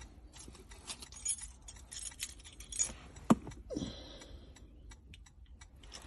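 Faint jingle and scattered light clicks of car keys being handled.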